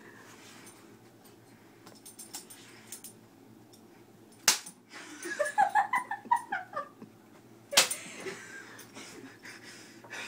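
A pet animal giving a rapid run of short, high-pitched cries for about two seconds, between two sharp knocks.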